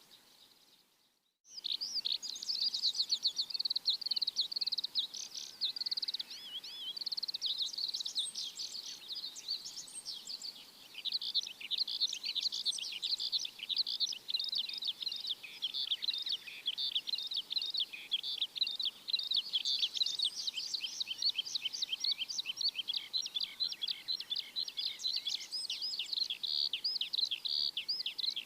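Small birds chirping in a dense, rapid stream of overlapping high chirps, starting abruptly after a moment of silence about a second and a half in.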